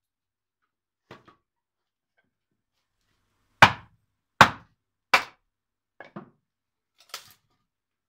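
Wood being split by hand for roof shingles: three sharp wooden knocks about three quarters of a second apart, then a few lighter knocks as the split pieces are handled.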